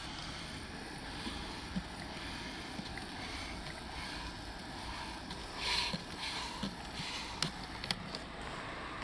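Steady outdoor background noise with a low rumble of wind on the microphone, a brief rustle about halfway through and a few faint clicks.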